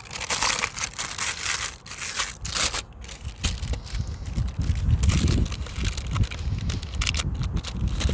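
Baking paper crinkling and rustling under hands that press and fold in the edges of cracker dough on a baking tray, with a low rumble about halfway through.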